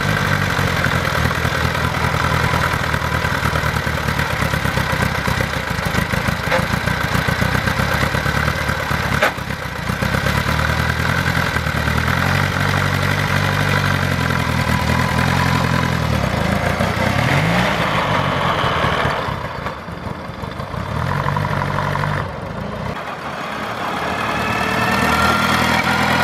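Inline four-cylinder air-cooled engine of a 1905 FN Four motorcycle running with quick, even firing. It is revved up and down a few times in the middle, and rises in pitch near the end as the bike rides away.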